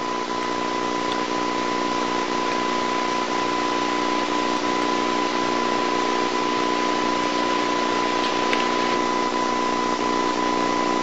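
Steady hiss with a constant high whine and a low hum underneath: the background noise of an old videotape recording, with no other sound standing out.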